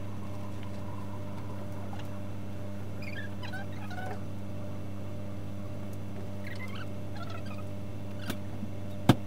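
A damp cloth squeaking in short, wavering chirps as it is rubbed over a car's glass and paintwork, over a steady electrical hum. A sharp click just before the end.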